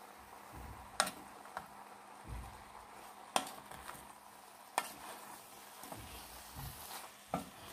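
A wooden spatula stirring sliced sponge gourd and chicken in a pot over a faint sizzle. The spatula knocks sharply against the pot several times, with dull bumps between the knocks.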